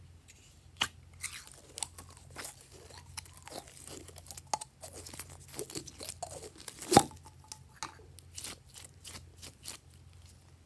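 Sticky green slime being pulled out of a small plastic container and squeezed by hand. It makes a run of crackling, squelching pops, with one sharp pop about seven seconds in.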